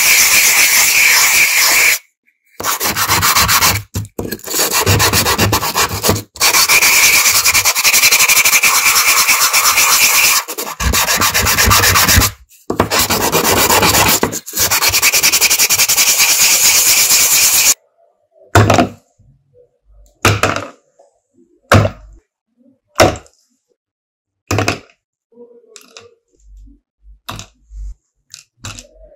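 Metal parts of an old lighter being sanded, a loud continuous rasp broken by several short pauses. After that comes a series of separate sharp taps about a second apart.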